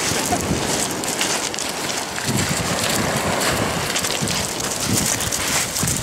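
Wind buffeting the microphone over surf breaking on a shingle beach, with footsteps crunching on the pebbles.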